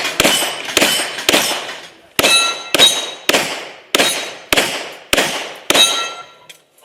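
Glock pistol fired about ten times in quick succession, roughly two shots a second with one short pause, at steel targets. Several hits are followed by the clang and brief ring of struck steel plates.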